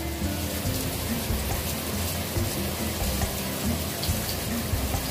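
Flour-and-egg-coated eggplant halves frying in hot oil in a pan: a steady, fine crackling sizzle.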